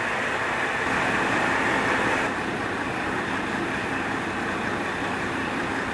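Steady rumble and hum of a train at a station platform, with a slight change in tone about two seconds in.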